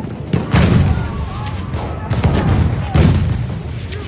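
World War One battle sound effect: a volley of gunfire and artillery over a continuous low rumble, with heavy blasts about half a second in and again about three seconds in.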